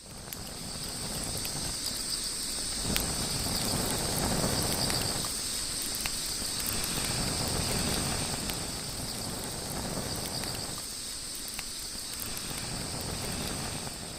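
Steady chorus of crickets or similar insects, two high-pitched unbroken trills, over a continuous rushing noise with scattered sharp crackles.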